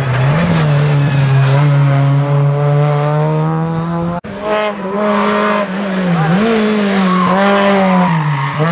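Rally car engines running hard at high revs, the pitch dipping and climbing again as the drivers lift off and change gear through the bends. The sound cuts abruptly about four seconds in to a second car's engine, which passes close by.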